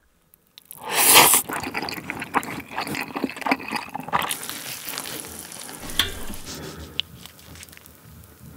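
Close-miked eating of spicy stir-fried instant noodles: a loud slurp about a second in, then wet chewing and smacking with more slurping of the noodles.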